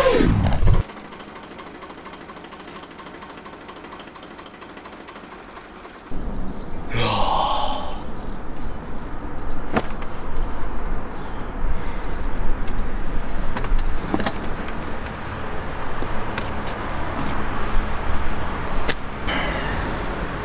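Eicher Königstiger tractor's air-cooled diesel engine comes in about six seconds in and keeps running with a steady low rumble. Just after it comes in there is a brief squeal that rises and falls, and a few sharp knocks follow later.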